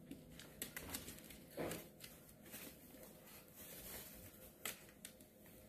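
Faint rustling with scattered soft clicks and scratches from puppies being handled and moving about on shredded-paper bedding, with one slightly louder soft sound a little under two seconds in.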